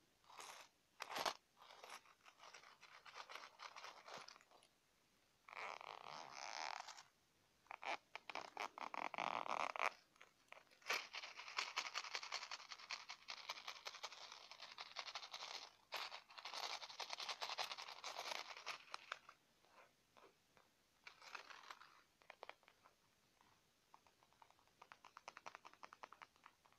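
Close-up handling of a coin purse: crinkling and rustling with sharp little taps and clicks, coming in long stretches with short pauses between.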